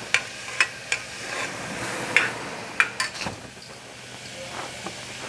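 Spoon stirring in a pressure cooker pot and clinking against it about six times in the first three seconds. Under it is a soft sizzle of tomatoes, ginger-garlic paste and pepper frying in ghee.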